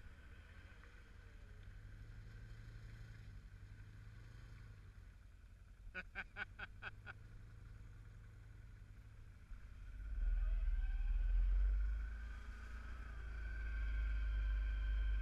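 ATV engine running at low speed along a muddy trail, a low steady rumble. About six seconds in, six short pitched beeps come in quick succession over about a second. From about ten seconds on the engine rumble grows clearly louder as the ATV speeds up.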